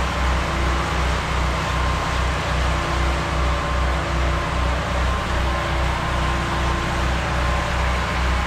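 Pressure washer running steadily, its motor giving a low throb that pulses about three times a second, under the hiss of water spraying from the wand onto the house siding.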